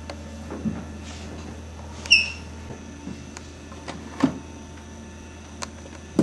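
Metal filing cabinet drawer being rummaged through: a few short, sharp knocks and clunks spread out, the loudest a ringing clink about two seconds in and another hard knock at the end.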